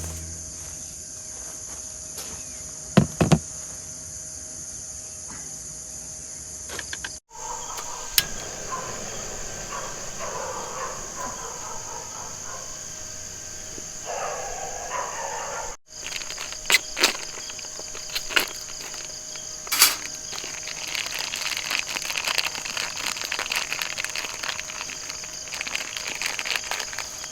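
A steady high-pitched chorus of insects such as crickets, with a few sharp clicks and knocks scattered through it. The sound breaks off abruptly twice, at about 7 and 16 seconds, and a rustling noise builds up in the last third.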